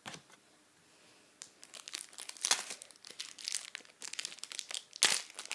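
Foil trading-card pack wrapper being crinkled and torn open by hand. The crackling starts about a second and a half in, with a sharp loud rip near the end.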